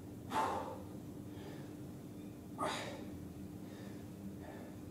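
Two short, forceful breaths, about two seconds apart, from a man exerting himself through abdominal knee tucks, over a faint steady hum.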